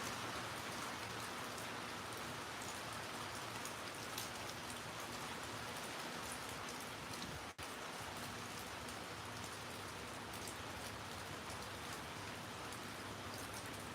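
Steady rain falling, with scattered drops pattering on surfaces close by. The sound cuts out for an instant about seven and a half seconds in.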